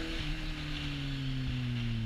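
Kawasaki Z800e's inline-four engine through an Akrapovic exhaust: the revs peak right at the start, then the engine note falls steadily as the throttle is closed. Wind noise hisses over the helmet camera.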